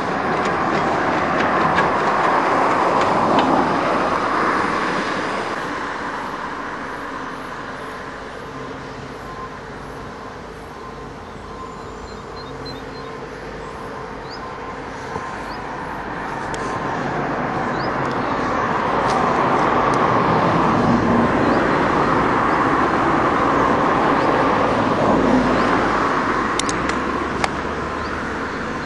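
Tracked excavator at work: its engine and hydraulics run loud, ease off for several seconds in the middle, then build up again, with a faint steady whine throughout.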